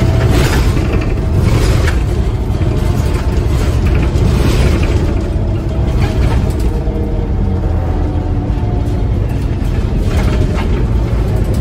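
Inside a Scania N230UD OmniCity double-deck bus on the move: the diesel engine and tyres make a steady low rumble, with rattling from the bus's interior fittings and panels every so often.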